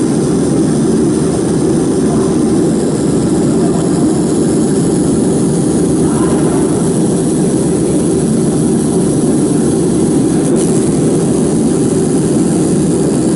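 Laser marking machine running with a loud, steady fan-like whir.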